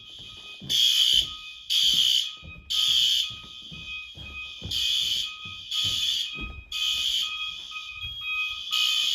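Fire alarm horns sounding in a full alarm: harsh blasts about once a second, over a second, steadier tone that breaks briefly, the two patterns out of step with each other.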